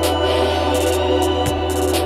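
Electronic background music: held synth chords over a steady low bass, with light high ticks and an occasional low drum beat.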